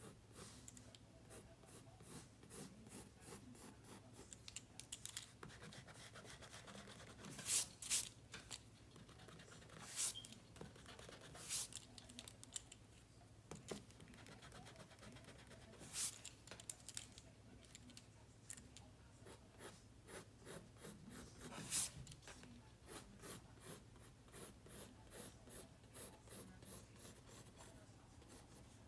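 Pencil drawing on sketchbook paper: a faint run of short, scratchy strokes, with a handful of louder strokes scattered through.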